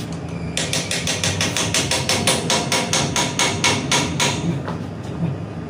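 Hand-tool work on a scooter: a rapid, even run of sharp taps, about seven a second, that starts about half a second in and stops a little past four seconds.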